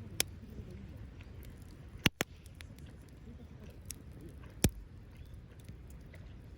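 Wood fire crackling in a small folding fire stand: a running patter of faint ticks over a low rumble, broken by four sharp pops, two of them in quick succession about two seconds in.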